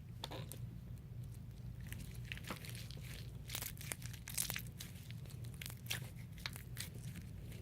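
Sticky borax slime made from a PVA face mask being poked and squished by fingers, giving irregular small clicks and crackling pops that come thickest in the second half.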